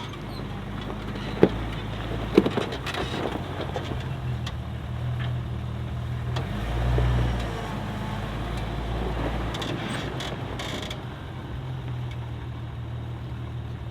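Jeep engine running at low speed while crawling over rock, swelling in a few slow throttle surges. Two sharp knocks come about a second and a half and two and a half seconds in.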